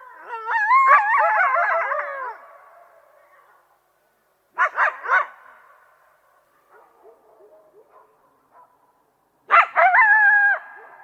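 Coyote yipping and howling: a warbling run of wavering calls in the first couple of seconds, three quick yips around the middle, faint calls after, then a loud burst of yips ending in a falling howl near the end.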